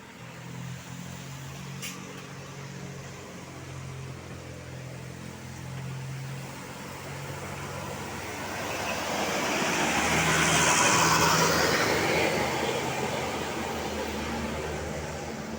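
A road vehicle passing close by, its noise swelling to a peak about ten to eleven seconds in and then fading, over the steady hum of an engine running.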